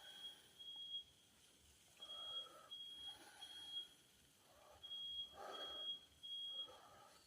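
Smoke alarm sounding its alarm signal, faint: short high-pitched beeps in groups of three with a pause after each group. This is the standard pattern of a triggered smoke alarm.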